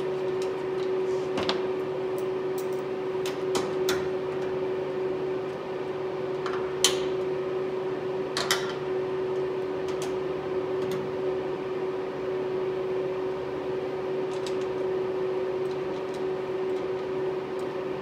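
A steady hum throughout, with scattered sharp metal clicks and taps, the loudest about seven seconds in, from a 10 mm socket wrench tightening the mount's bolts on the truck's bed rail.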